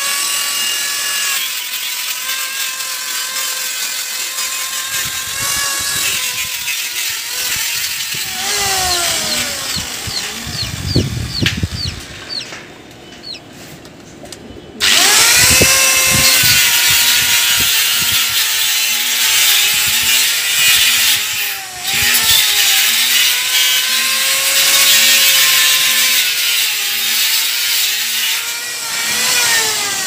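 Electric cutter machine cutting wire mesh: a high motor whine that sags under load and picks up again. It winds down about nine seconds in, stops for a couple of seconds, then spins back up about fifteen seconds in and winds down again near the end.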